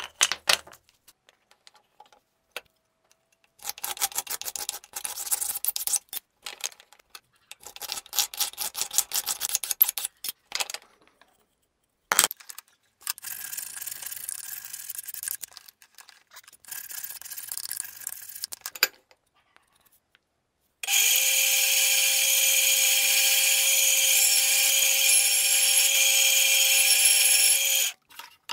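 Rapid hand strokes of abrasive scraping on wooden handle stock come in several bursts. One sharp click follows. Then an electric bandsaw runs with a steady whine for about seven seconds, cutting a wooden handle block, and cuts off abruptly near the end.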